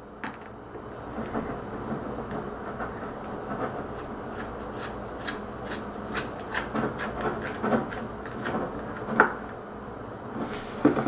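Small tools scraping and clicking against a phone's casing and parts as it is taken apart, a steady rubbing with many small ticks and a sharper knock near the end.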